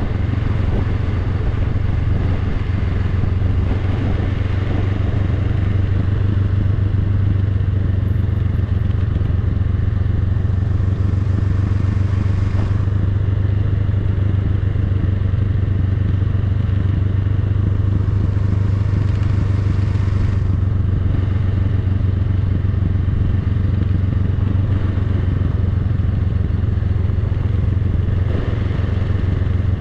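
Honda Rebel 500's parallel-twin engine running steadily at a low, even pitch. A faint hiss swells and fades twice, about a third and two-thirds of the way in.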